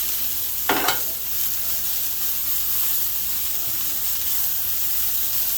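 Diced onions and serrano peppers sizzling steadily on a hot flat-top griddle, with one brief sharp sound just under a second in.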